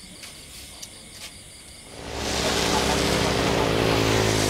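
Faint steady high chirring of insects, then about halfway through a motor vehicle's engine grows loud as it comes close, running steadily with a slightly falling pitch.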